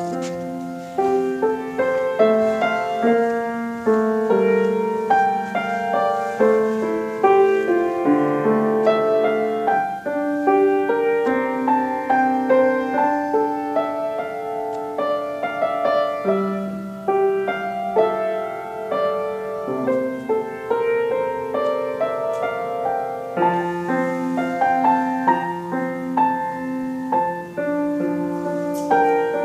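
Solo piano playing, chords under a moving melody line.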